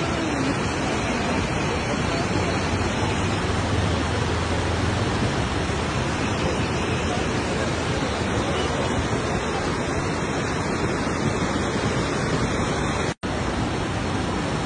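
Muddy river in flood rushing and churning below a bridge: a loud, steady noise of fast water. The sound cuts out for an instant near the end.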